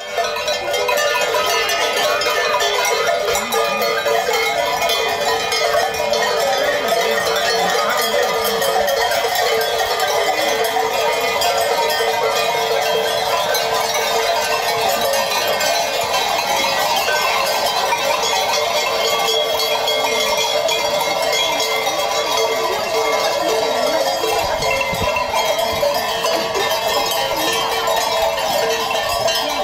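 Many cowbells clanging together without pause as a herd of brown cattle walks past.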